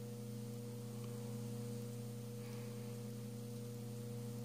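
Steady low electrical hum over faint hiss.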